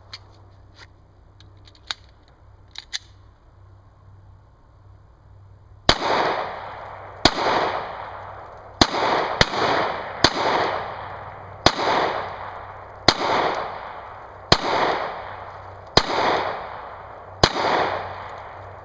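A few light clicks as a Glock 19 9mm pistol is readied, then ten pistol shots fired at a slow, deliberate pace, about one every second and a half with one quicker pair, each shot trailed by a short echo.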